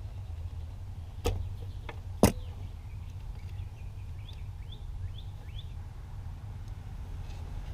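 Two sharp clicks of a hand tool working on car wiring, the second one the louder, about a second apart, over a steady low rumble. A few short rising chirps follow a couple of seconds later.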